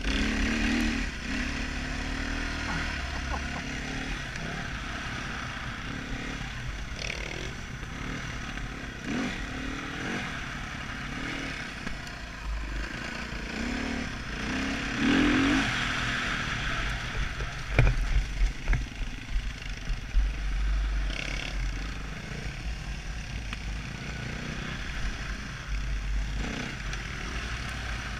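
Husqvarna dirt bike engine being ridden on a dirt trail, revving up and down with the throttle. Sharp knocks and rattles from the bike come over bumps, with a cluster of them a little past halfway, and wind rumbles on the helmet-mounted microphone.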